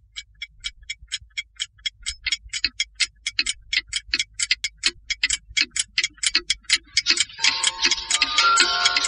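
Clockwork ticking, an even tick-tock at about four ticks a second, growing louder. About seven seconds in, music comes in over the ticking.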